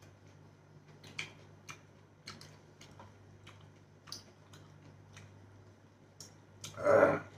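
Hand-eating sounds: scattered small clicks and smacks of fingers working food on plates and of chewing, with one louder sound lasting about half a second near the end.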